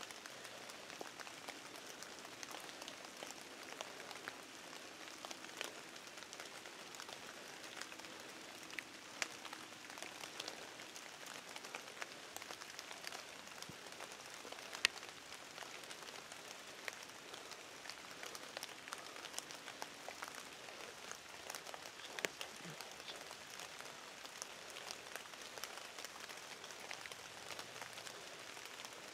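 Light rain pattering: a faint steady hiss with many small scattered ticks, one sharper tick about halfway through.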